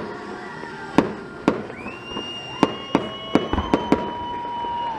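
Fireworks going off in an irregular string of sharp bangs, about nine in all, bunched more closely in the second half. A steady high tone sounds underneath from about two seconds in.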